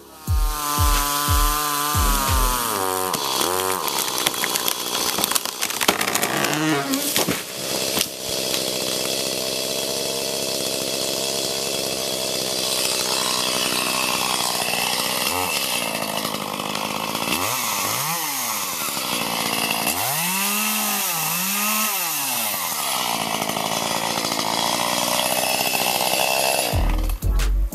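Echo two-stroke chainsaw running and cutting into a tree trunk, the engine pitch wavering under load. A few quick revs up and down come about two-thirds of the way through.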